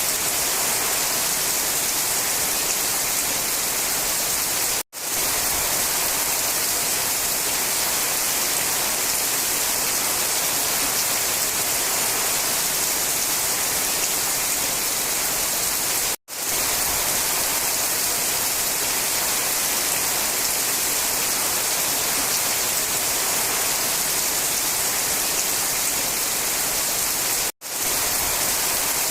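Steady rain falling, a dense even hiss, that cuts out for an instant three times, about eleven seconds apart.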